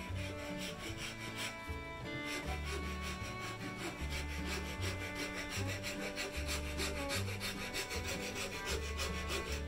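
A flat metal file rasping across a wood-and-resin ring blank held in a bench vise, in quick repeated back-and-forth strokes. Background music plays underneath.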